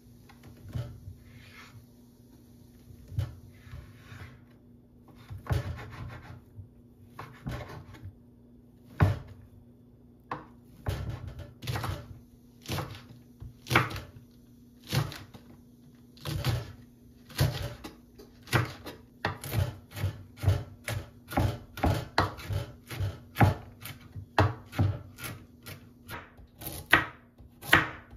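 Kitchen knife chopping on a bamboo cutting board, each stroke a sharp knock of the blade on the board. The strokes are spaced about a second apart at first and quicken to about two a second in the second half, as green chili peppers are sliced.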